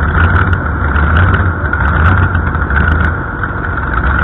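Competition pulling tractor's engine idling steadily with a deep hum, easing slightly a little after three seconds in.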